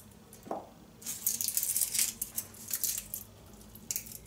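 Garlic cloves being peeled by hand: dry papery skins crackling and scratching in short, quick bursts, with a small knock about half a second in.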